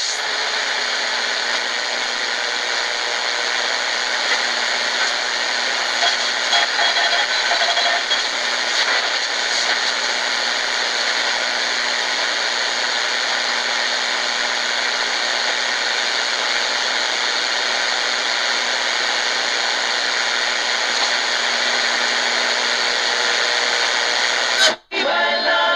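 Static hissing from the Tecsun GR-138 portable radio's speaker as it is slowly tuned between shortwave stations, with faint whistles and fragments of weak signals. Near the end it cuts out for a moment and music comes in.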